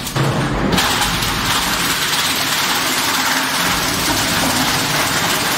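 RG-56120E plastic granulator grinding up a PP plastic pallet: a loud, dense grinding noise that swells within the first second as the pallet goes in, then holds steady.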